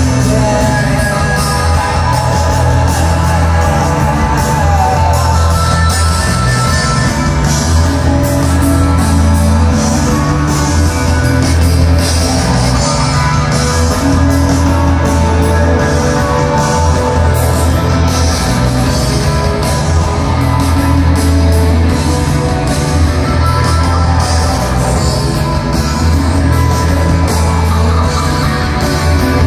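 Live rock band playing loud and steady, with electric guitars over a heavy bass line and a drum beat, heard in the concert hall from among the audience.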